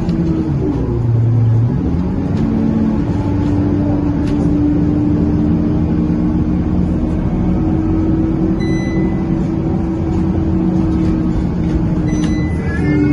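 Scania K230UB bus heard from inside the cabin on the move: the diesel engine running with a loud, steady drone, the uncommonly loud radiator noise this bus is known for. A brief high squeak near the end.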